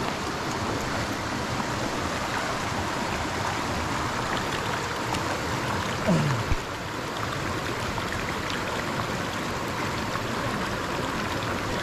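Steady rush of flowing stream water. About six seconds in there is a brief falling call from a person's voice.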